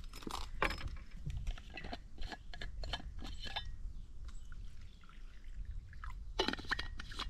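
Water sloshing and dripping at a dog's travel water bottle and bowl: a string of small wet clicks and splashes, about three a second, with a louder cluster near the end.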